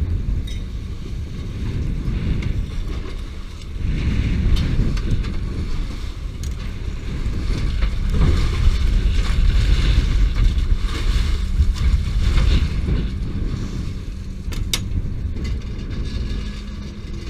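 A small fishing boat's engine running with a steady hum while a longline is hauled aboard, wind buffeting the microphone, and a few sharp knocks from fish and gear being handled on the deck and rail.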